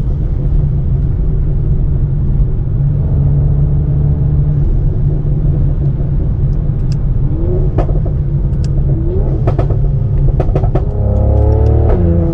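Tuned Mercedes-AMG C43's twin-turbo V6 exhaust running at a steady part-throttle cruise. From about seven seconds in it breaks into a string of sharp pops and crackles. Near the end it revs up and the note drops as it shifts gear.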